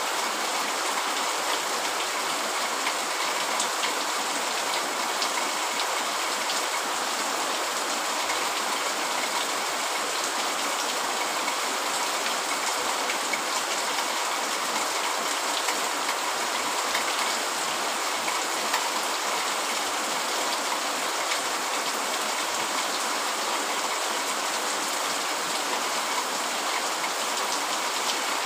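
Steady rain falling, an even hiss with scattered light drop ticks.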